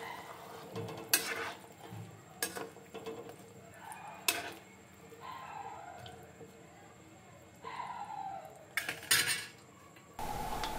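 A metal spoon clinking and scraping against a cooking pot as fried rohu fish pieces are mixed into the boiling curry: a few sharp clinks spaced a second or more apart, with softer scraping between them.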